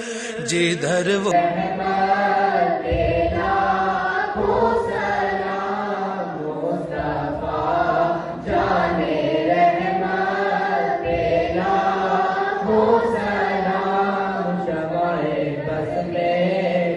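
A group of boys and girls singing a naat together in unison, in long devotional phrases that rise and fall in pitch. A wavering held note breaks off about a second in, just as the singing takes over.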